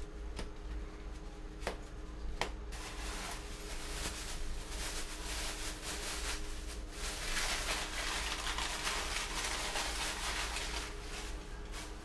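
A bag rustles and crinkles as it is handled, a crackly rustle that runs from about three seconds in until near the end. Two light clicks come just before it.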